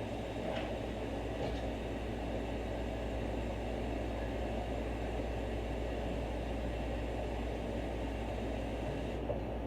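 Steady low hum with an even rushing noise, the sound of a running kitchen appliance motor or fan, with two faint clicks about half a second and a second and a half in.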